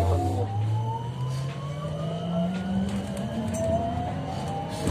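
Bogdan T901 trolleybus's electric traction motor and inverter whining, the pitch rising steadily as the trolleybus picks up speed, with a fresh rise from about three and a half seconds in. A knock near the end.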